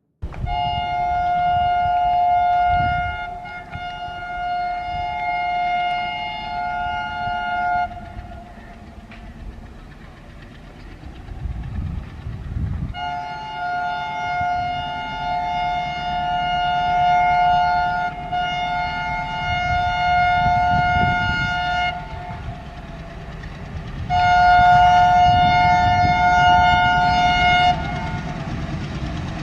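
ALCO WDM3A diesel locomotive sounding its two-tone horn in three long blasts: the first lasts about seven seconds, the second about nine, and the last, loudest, is shorter, near the end. A low rumble from the chugging diesel engine runs underneath.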